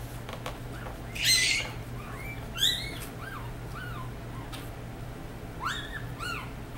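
Newborn Labradoodle puppies squeaking: short high squeaks, each rising then falling in pitch, in two runs, about four around the middle and three more near the end. A brief rustle about a second in is the loudest sound.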